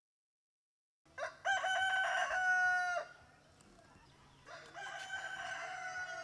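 A rooster crowing twice: a loud crow starting about a second in, then a second, quieter crow a few seconds later.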